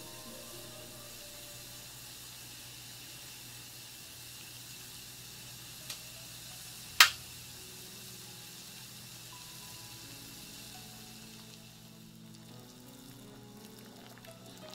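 Pot of water with kanpyō strips heating toward the boil on a gas burner: a steady hiss of heating water and flame. A sharp click comes about seven seconds in, with a fainter click about a second before it.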